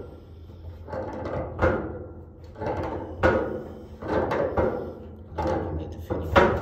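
Tongue-and-groove pliers working the gas hose fitting tight on the heater's gas inlet nipple: a series of short metal scrapes and clicks, roughly one a second, as the jaws grip, turn and reset on the fitting.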